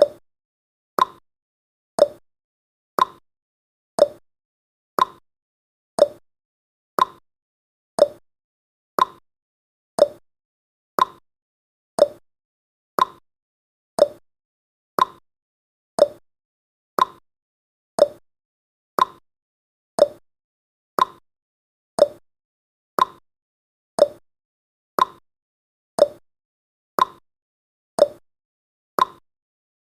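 Clock ticking sound effect marking the seconds of a countdown timer: one short tick a second, alternating a higher tick and a lower tock.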